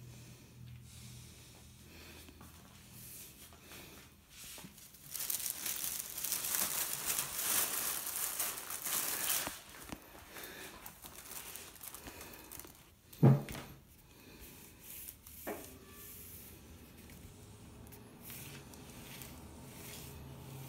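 Thin black plastic bag crinkling and rustling as a kitten burrows into it, loudest for about four seconds in the first half. Later comes a single sharp thump, then a lighter knock.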